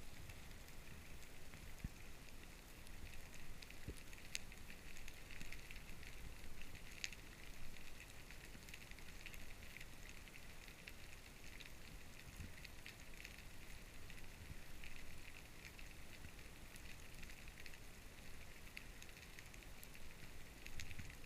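Faint underwater ambience: a steady crackle with scattered clicks and ticks over a low rumble, heard through an underwater camera housing.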